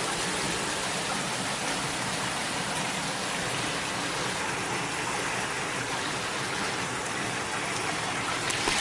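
Heavy rain pouring down in a steady hiss during a strong storm.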